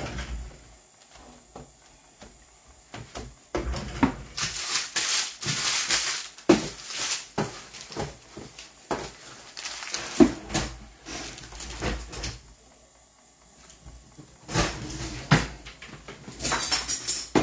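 Rummaging through a cupboard: irregular knocks and clunks with bouts of rustling as items and boxes are shifted around.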